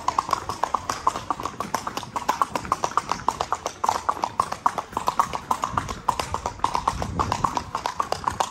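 Mangalarga Marchador horse's hooves clip-clopping on a cobblestone street: a quick, even run of hoofbeats, several a second.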